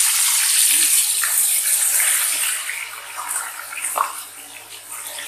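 Whole spice-coated chicken sizzling loudly in hot oil in a karahi just after being lowered in, a dense frying hiss that is fiercest in the first couple of seconds and then settles somewhat. A single click about four seconds in.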